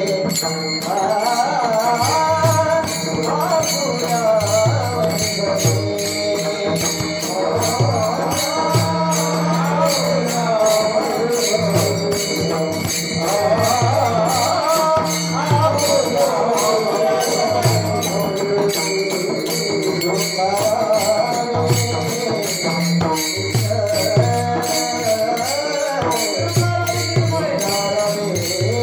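Devotional kirtan bhajan: voices singing an abhang over a steady beat of small hand cymbals and a drum, with a held drone underneath.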